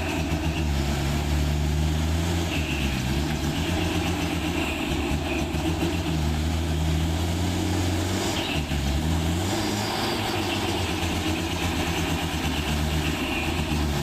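Heavy truck engine running at low revs under load, its pitch dipping and rising a few times.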